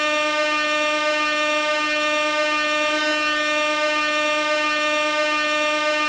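Gas air horn sounding one continuous note, held at a steady pitch and level without a break, with a buzzy, overtone-rich tone.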